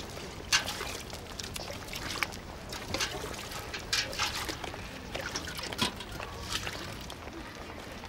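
Water being scooped and poured into metal buckets from an open stream: trickling and splashing, with irregular sharp splashes and clinks of the pails.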